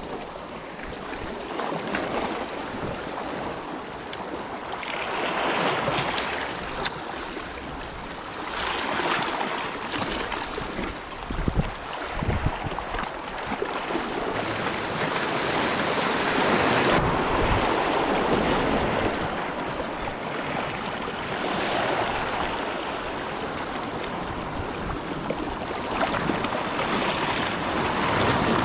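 Sea surf washing in and drawing back, the rush rising and falling every few seconds, with a brief harsher hiss around the middle.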